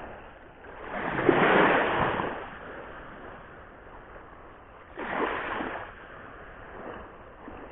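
Sea waves breaking on a rocky shore: one wash swelling up and fading about a second or two in, then a sharper surge about five seconds in, over a steady low wash of surf.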